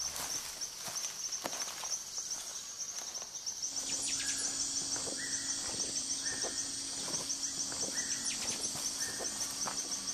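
Tropical rainforest ambience: insects keep up a steady, pulsing high drone, with a few soft knocks in the first few seconds. After about four seconds the background changes, and a short level call repeats about once a second.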